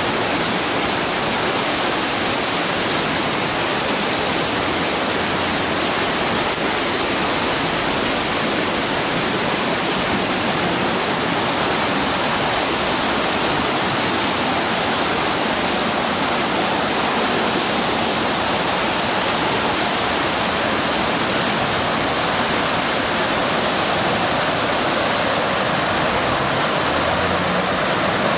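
Flash floodwater rushing and churning in a fast, steady torrent.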